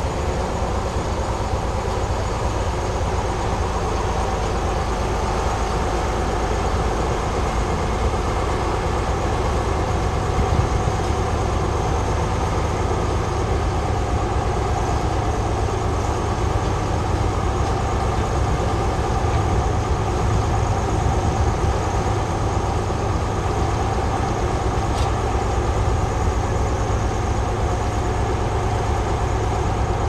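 Engine of a vintage Ruston Bucyrus cable-operated excavator running steadily.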